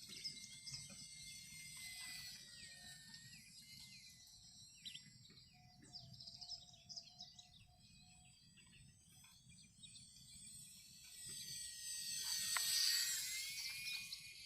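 Small electric RC model A6M2 Zero in flight, its motor and propeller making a thin high whine that shifts in pitch. It grows louder near the end as the plane passes close, then eases. Birds chirp now and then in the background.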